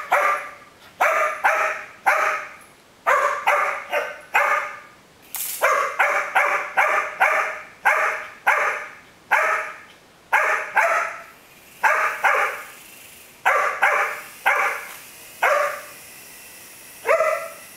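Dog barking over and over in play, in quick runs of two to four barks with short pauses between, while it play-bows at a small toy helicopter.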